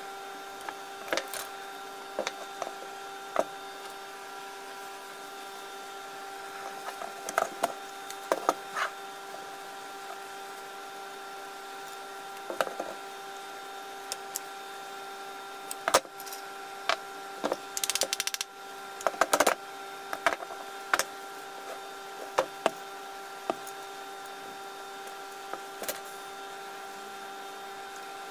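Scattered light clicks and knocks as disassembled power-tool parts (motor housing, field coil, armature) are handled and set down on a wooden workbench, with paper towel rustling briefly a little past the middle. A steady hum runs underneath.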